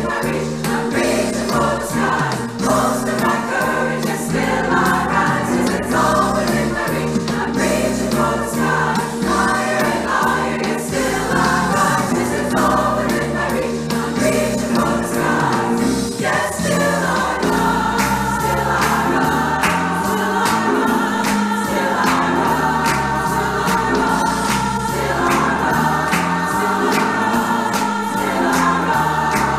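Women's choir singing a song in harmony. About halfway through, the voices settle into long held chords.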